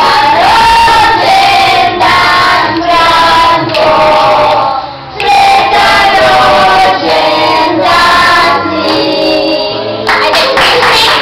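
A group of people singing a song together, with held notes and a brief pause about five seconds in.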